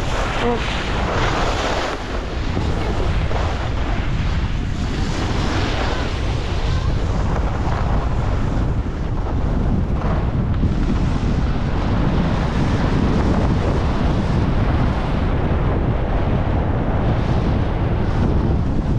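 Wind rushing over a moving camera's microphone while skiing downhill: a steady low rumble, with swells of hiss as the skis carve and scrape over packed snow.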